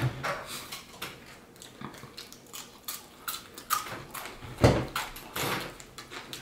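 A person chewing crunchy, extra-crispy fried chicken crust close to the microphone: irregular crackling crunches, with one louder thump about four and a half seconds in.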